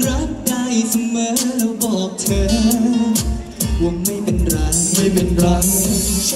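Live band playing a Thai pop song, a singer's voice over a steady drum beat.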